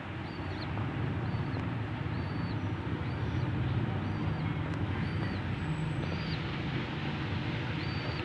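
Steady low rumble of background noise, with a faint short high chirp repeating about once a second.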